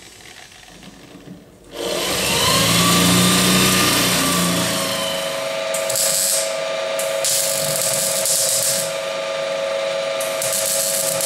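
Arc welding on a sheet-metal motorcycle sidecar body: the arc crackles and hisses in three short runs with pauses between, over a steady hum. It is preceded, about two seconds in, by a louder whirring with a whine that rises and falls.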